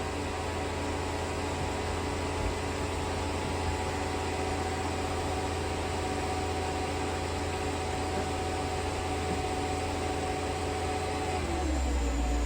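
Mercedes-Benz SL500's V8 engine idling steadily; about eleven and a half seconds in, its pitch shifts down and the low hum grows slightly.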